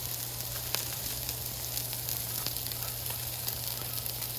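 Beef patties and buttered bread frying on a Blackstone flat-top griddle: a steady sizzling hiss with fine crackles throughout, over a steady low hum.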